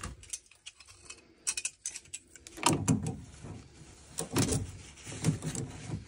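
Scattered clicks, knocks and light rattles of a pair of grips and other hand tools being handled against the internals of an open combi boiler, as the grips are worked onto the old hot water sensor.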